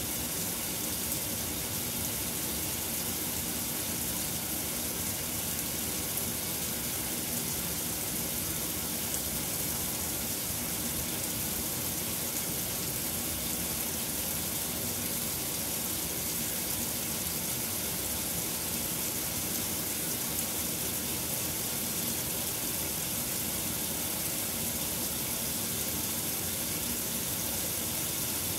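KitchenAid Superba KAWS850LT1 top-load washing machine filling: water pours into the tub of clothes with a steady hiss.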